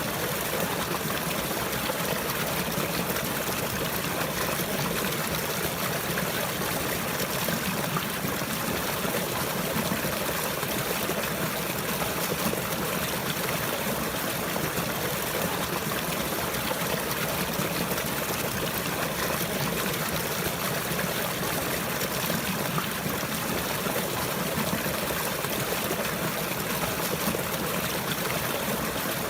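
Running water flowing and trickling steadily, an even rushing hiss with no breaks or changes.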